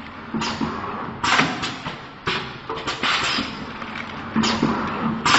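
Vertical liquid pouch packing machine running and cycling, with a thud and a short burst of hiss about once a second.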